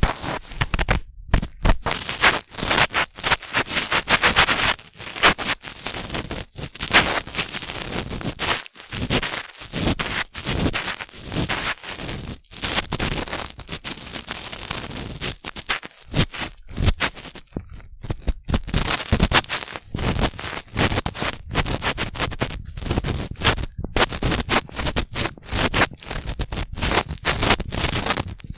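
Cotton swabs rubbing and scraping in the ear of a binaural microphone, heard very close as a dense, irregular scratchy crackle with a few brief pauses.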